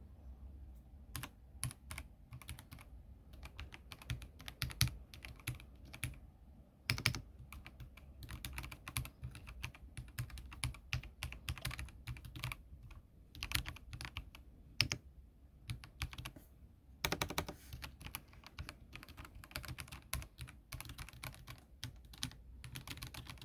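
Typing on an EPOMAKER Feker Alice gasket-mounted, foam-dampened mechanical keyboard with Yellow Pro 2.0 switches. The keystrokes come in irregular runs with short pauses.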